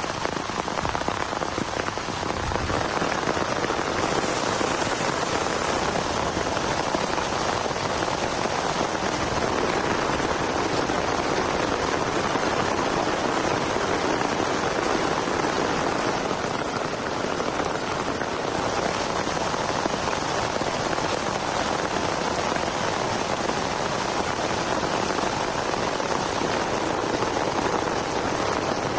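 Heavy rain falling steadily, a dense even patter with no break.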